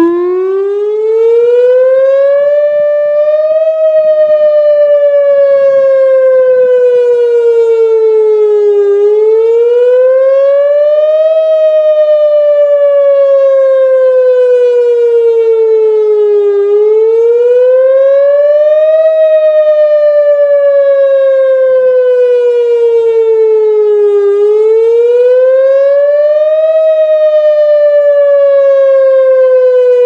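Whelen WPS-2906 electronic outdoor warning siren sounding a wail during a scheduled test. Its tone rises over a couple of seconds, then falls slowly over about five, four times over.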